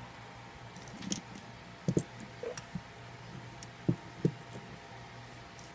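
A few light clicks and taps of small plastic fan parts being handled, the loudest in two quick pairs about two and four seconds in, over a faint steady hum.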